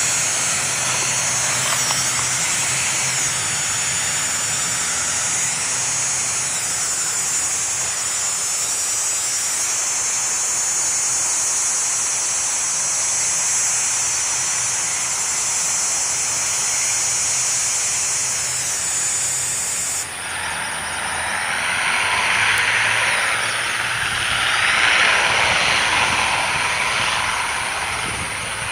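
ATR 72-600 turboprop airliner taxiing with both Pratt & Whitney PW127 engines running and its propellers turning, a steady engine hum with a high whine. About twenty seconds in, the high whine drops away and a louder rushing engine noise swells.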